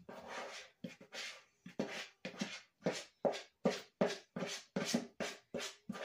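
A spatula scraping brownie batter out of a mixing bowl into a baking pan: a run of short scratchy strokes, about two or three a second.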